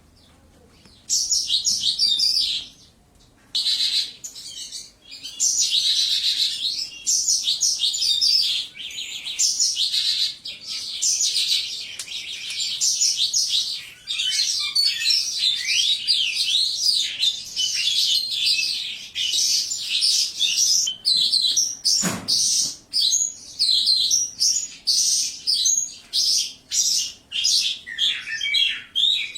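Caged Mongolian lark singing a long, varied song of rapid chirps, trills and quick rising and falling notes, broken by two short pauses in the first few seconds. A single sharp knock sounds about 22 seconds in.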